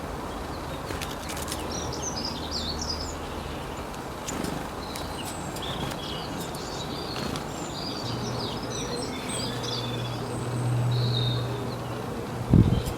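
Several small birds chirping in quick, overlapping short calls over a steady background hiss and low hum. A single thump sounds near the end.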